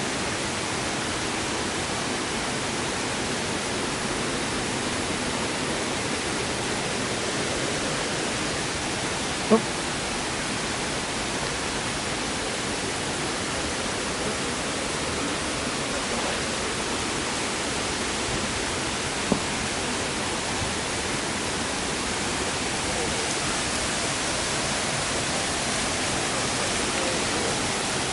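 Steady rush of water from a waterfall on a mountain stream, with two brief knocks, one about a third of the way in and one about two-thirds in.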